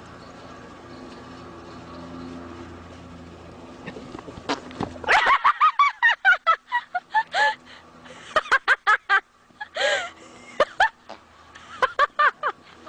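A horse farting in a rapid string of short, loud, pitched blasts, several a second, as it runs and bucks. Before them, a few seconds of steady low background hum.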